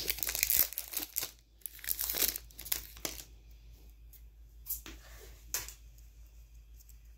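Foil wrapper of a Pokémon Astral Radiance booster pack crinkling and tearing open for about three seconds, followed by two brief rustles of the foil.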